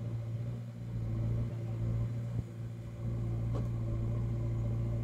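Diesel engine of a JCB backhoe loader running steadily, a low constant drone, as the machine works stuck in deep mud.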